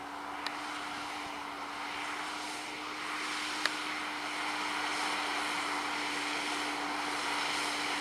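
Fendt 720 Vario tractor's six-cylinder diesel engine running under load, pulling a six-furrow plough through sandy soil: a steady hum over a noisy rush that grows louder as the tractor comes closer. Two sharp clicks stand out, one about half a second in and one near the middle.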